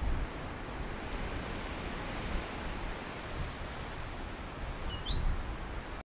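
European robin singing faintly: a few sparse, thin, high notes, the clearest a short rising note about five seconds in, over a steady noisy background with low rumbles near the start and about five seconds in.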